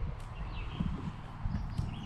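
Soft, irregular footfalls and light knocks.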